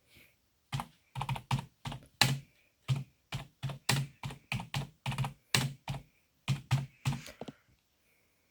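A quick run of about twenty short taps or knocks, two to three a second, stopping a little before the end.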